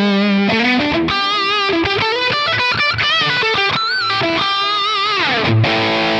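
Distorted electric guitar played through a Quad Cortex capture of a Marshall Super Bass 100 amp on its lead setting: a single-note lead line with wide vibrato, quick runs in the middle and a falling bend, ending on a low held note. The tone is kind of loud and hissy.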